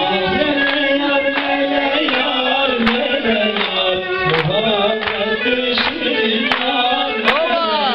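Live dance music with singing and a steady beat, the dancers clapping along in time.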